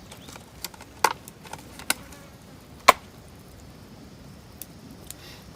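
Irregular sharp clicks and knocks of cooking utensils against cookware, the loudest about three seconds in.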